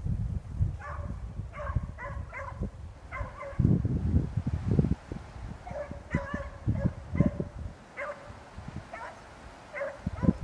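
Beagle pups barking and baying in strings of short, high calls while running a rabbit through cover, with a pause of about two seconds near the middle. Under them is a low rumbling noise that swells at times.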